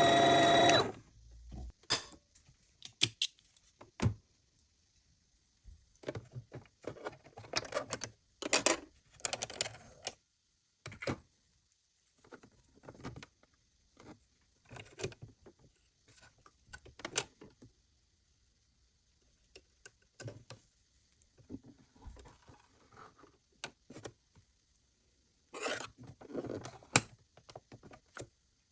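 Sewing machine motor running and stopping about a second in. Then scattered clicks, taps and light rattles of the machine's parts being handled.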